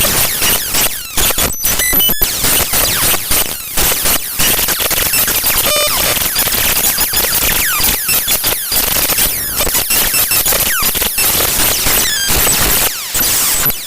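Raw bytes of the Google Drive file drivefsext.dll played directly as audio: harsh, dense digital noise full of squeaks, quick chirping pitch sweeps and brief held tones, changing abruptly every fraction of a second with a few short dropouts.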